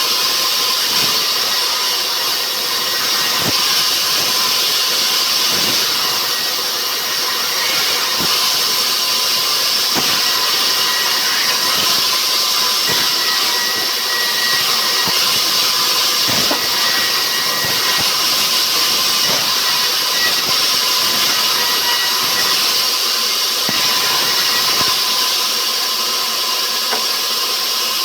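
Sawmill saw running steadily: a loud, dense hiss with a faint steady whine and a few light knocks.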